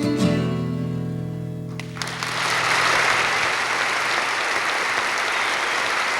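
The song ends on a last strummed acoustic guitar chord that rings and fades; about two seconds in, an audience breaks into steady applause.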